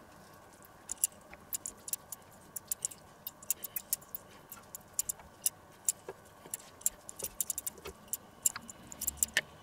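Irregular light clicks and taps of a metal-handled basting brush against a small plastic tub and a stainless steel tray as mustard is brushed onto chicken slices, several clicks a second.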